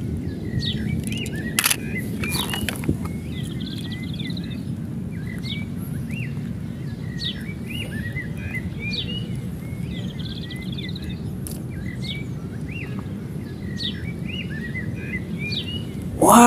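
Small birds chirping in short, repeated phrases over a steady low rumble of outdoor background noise. There are a couple of faint clicks about two seconds in.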